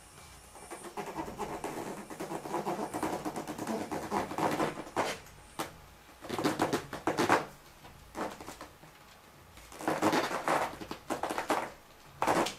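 Steel stiletto heel of a leather boot pressing and grinding into a rubber basketball, giving a rapid rubbing, scraping noise in about four bursts. The first burst runs a few seconds, and shorter ones follow after brief pauses.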